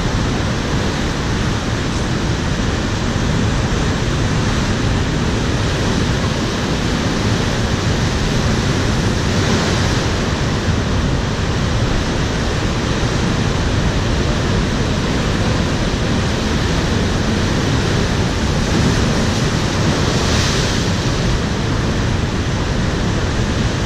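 Heavy ocean surf breaking over rocks: a steady, loud rush of whitewater, with two louder wave breaks, one about ten seconds in and another toward the end.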